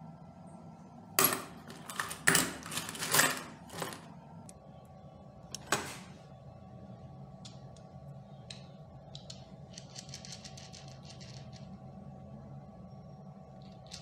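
Steel bolts and nuts clinking and clattering against each other in a plastic box as they are sorted by hand. There is a run of sharp metal knocks in the first few seconds, a single clink about six seconds in, and a brief light rattle of small parts around ten seconds, all over a faint steady hum.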